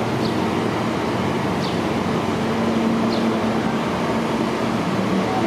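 R160A-1 subway train standing at the platform with its doors open, its equipment giving off a steady hum over a constant background rumble. A few faint, short high chirps come about every second and a half.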